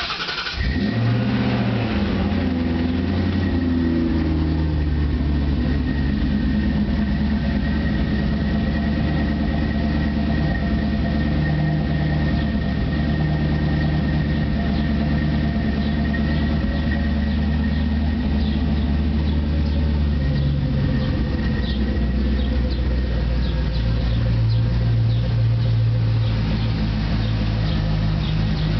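Ford Thunderbird 4.6L DOHC V8 through a 2.5-inch true dual exhaust with an X-pipe and Flowmaster 40 mufflers: it cranks and catches right at the start, flares to a fast idle for a few seconds, then settles into a steady idle that drops lower about twenty seconds in.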